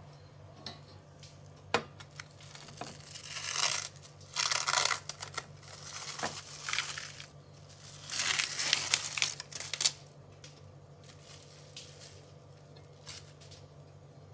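Plastic cling film being peeled off a tub of frozen ice cream and crumpled, in three crinkling, tearing stretches, with a sharp knock about two seconds in.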